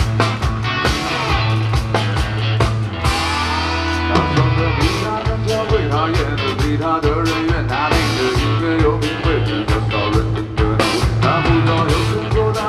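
Rock band playing: a steady drum beat under a sustained bass line, with electric guitar on top. About four seconds in the bass slides down.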